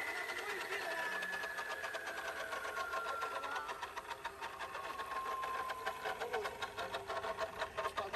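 Portable electric concrete slab cutter's motor and diamond blade spinning down clear of the stone, a whine falling steadily in pitch with a fast, even ticking underneath.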